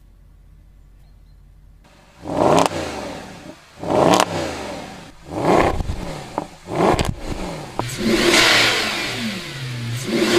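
Mercedes-Benz SLS AMG Roadster's 6.2-litre V8 revved in four short blips about a second and a half apart, each rising and falling away. From about eight seconds in, the revs are held up longer.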